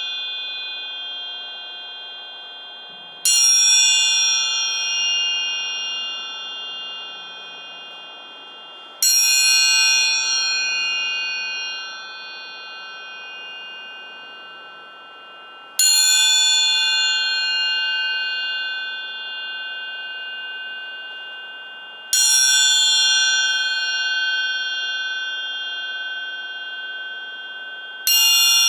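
Amplified orchestral triangle struck about every six seconds, five strokes in all. Each stroke rings with many high overtones and slowly dies away before the next.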